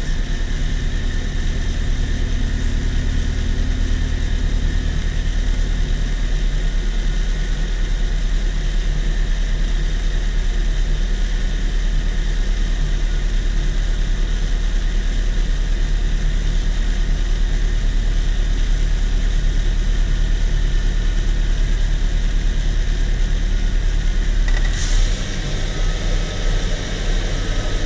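1997 Saturn SL2's 1.9-litre four-cylinder engine idling steadily. About 25 seconds in there is a sharp click and the engine note changes as the AC compressor clutch engages, now that refrigerant is going into the empty system.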